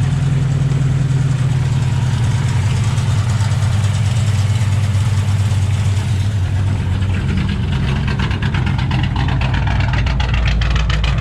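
2008 Ford Mustang GT's 4.6-litre V8 idling with a passenger-side misfire that swapped spark plugs have not cured. About eight seconds in, its note drops lower.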